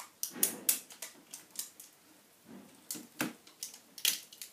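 Fingers picking at and peeling the adhesive tape on a laptop LCD panel's screen cable and unplugging its connector: a quick, irregular run of small plastic clicks and crinkles, the sharpest about half a second in and again near three and four seconds.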